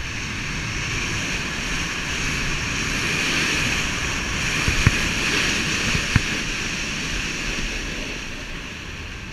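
Never Summer Proto HDX snowboard sliding and carving down packed, groomed snow: a steady hiss of the base and edges, with wind rumbling on the microphone. Two sharp knocks come about five and six seconds in.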